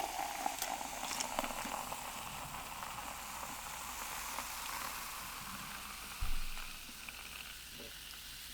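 Faint chewing and crunching of loaded nachos over a steady hiss. There is a single low thump about six seconds in.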